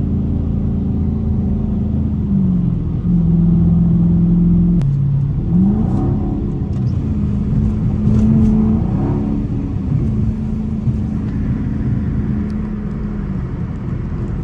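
Dodge Challenger R/T's 5.7-litre HEMI V8 heard from inside the cabin at highway speed, over tyre noise on a wet road. The engine note drops in pitch twice in the first five seconds, climbs in a quick rev around five seconds in, then settles again.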